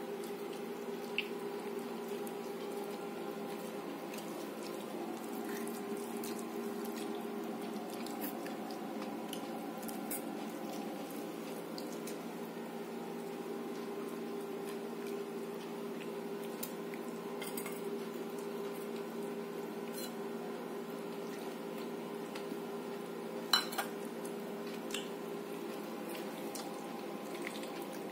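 A steady electrical hum throughout, with a few sharp clinks of stainless-steel plates and bowls as people eat, the loudest pair near the end.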